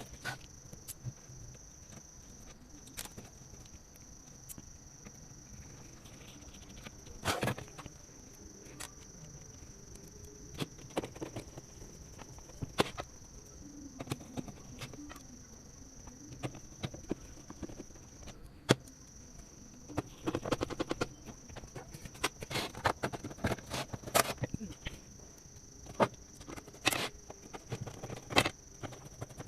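Scattered clicks, taps and knocks of a Dahua XVR recorder's board being fitted back into its case by hand, busier in the second half, over a faint steady high-pitched whine.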